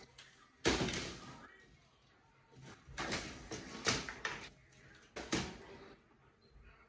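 Crunchy bites and chewing of a whole pickle wrapped in cotton candy: a sharp crunch about half a second in, then a cluster of crunches around three to four seconds in and another just past five seconds.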